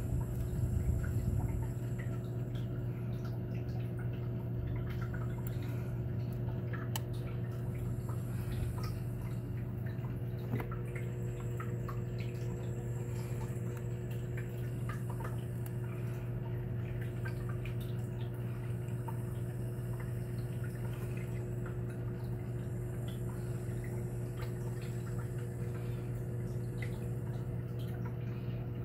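Reef aquarium equipment humming steadily, with water trickling into the tank and many small scattered drips and splashes.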